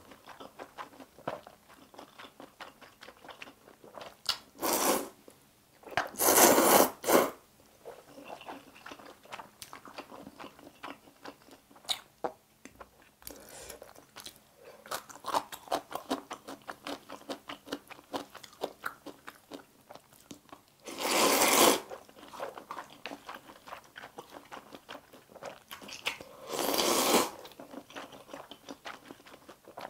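Close-miked eating of chewy spicy instant noodles: steady wet chewing and mouth clicks, broken by four loud slurps of noodles, the longest about six seconds in.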